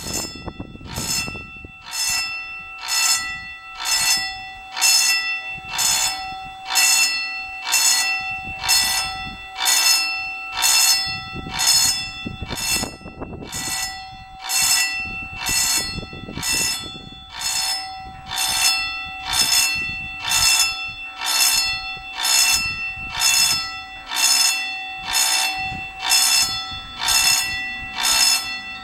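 Level crossing warning bell striking about once a second, each stroke ringing on and dying away: the signal that a train is approaching the crossing.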